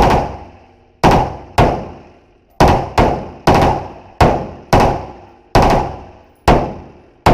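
Galil rifle in 5.56 fired in semi-automatic, about eleven single shots at an uneven pace of roughly one a second or a little faster, each with a short echoing tail.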